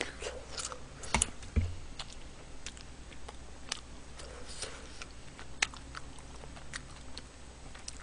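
Close-miked chewing and wet mouth clicks of someone eating a soft, chewy potato dumpling, scattered through the whole stretch. About a second in come two louder knocks.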